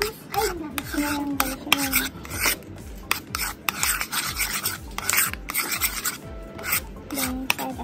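Metal spoon scraping and clinking against a ceramic bowl in quick, irregular strokes, stirring a thick, creamy sauce.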